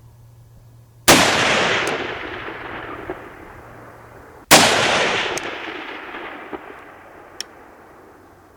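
Two rifle shots from a Swiss K31 in 7.5x55 Swiss, about three and a half seconds apart, each followed by a long echo that fades over a few seconds.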